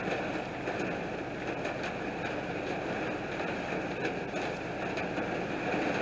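Heavy rain pouring steadily, an even dense hiss with faint scattered drop ticks through it.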